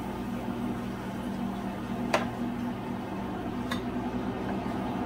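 Fried plantains being lifted out of hot oil in a frying pan: the oil sizzles softly over a steady low hum, and a metal utensil clinks sharply twice, about two seconds in and again past three and a half seconds.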